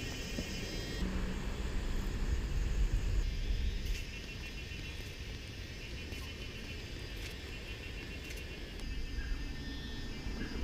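Outdoor ambience: a steady low rumble with faint, rapid, evenly pulsed chirping high above it. The background changes abruptly a few times.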